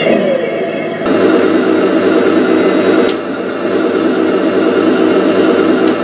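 Heng Long RC Leopard 2 A6 tank's electronic sound unit playing its simulated engine running sound through the model's small speaker, with a thin, buzzy mechanical tone. It steps up about a second in, a sharp click comes about three seconds in, and the sound changes again near the end.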